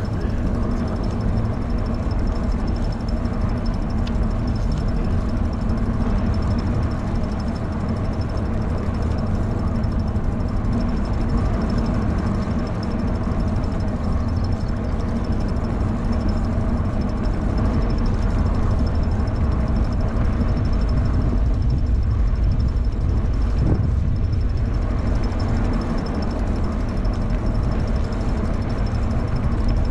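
Steady wind rush and rolling road noise on the microphone of a bicycle (an e-bike) riding along a paved road, a little louder in the second half.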